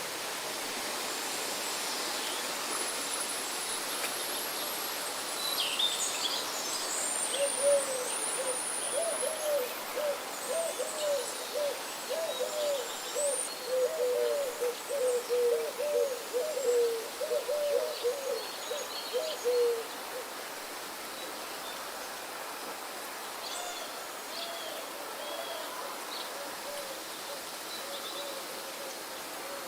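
Forest birdsong: one bird gives a long run of short, low hooting notes, about three a second, from roughly a quarter of the way in to two-thirds through. Higher chirps and whistled songs from other birds come over it, against a steady background hiss.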